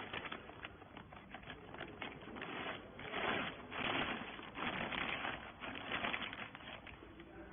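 Irregular clattering and rustling, with many small clicks and louder swells about three and five seconds in.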